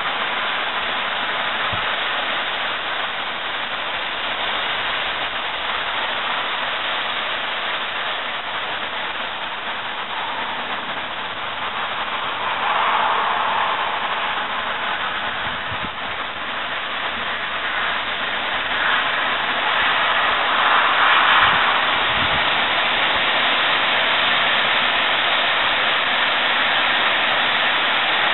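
Steady rushing of wind through the trees ahead of a severe thunderstorm, swelling in gusts about halfway through and again about two-thirds of the way in.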